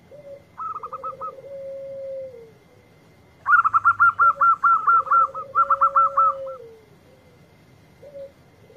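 A zebra dove (perkutut) sings its low cooing phrase twice: a short note, a rolling trill, then a long held note that falls away at the end. Through the middle a louder run of quick, higher-pitched bird notes repeats at about five a second.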